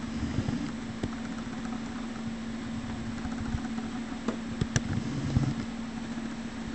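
Steady low machine hum at one pitch, with a few light clicks and soft low knocks in the second half.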